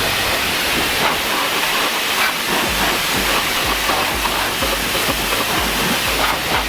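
Pressure washer spraying water onto the mud-caked rear end of a car: a steady hiss of spray.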